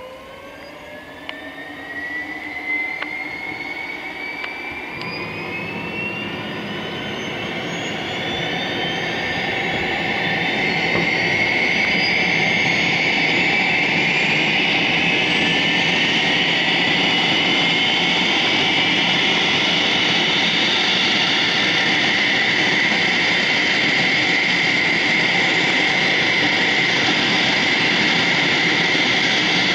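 Turbofan engines of a Cessna Citation II jet spooling up: several whining tones rise in pitch over about ten seconds, a low rumble joins about five seconds in, then they settle into a steady, loud high whine.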